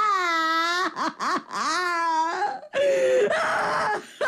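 A woman wailing and sobbing: long drawn-out cries that dip and then rise in pitch, broken by shorter sobs.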